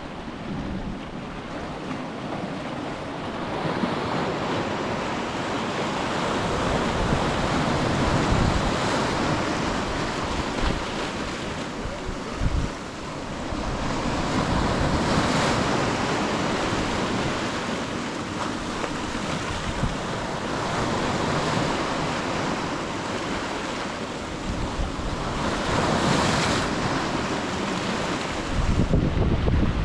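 Ocean waves surging and washing onto a beach, swelling and easing every few seconds, with wind buffeting the microphone.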